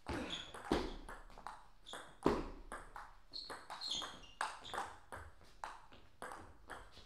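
Table tennis rally: the ball clicking quickly back and forth off the bats and the table, about three to four clicks a second, some with a short high ring. Two louder knocks come in the first couple of seconds.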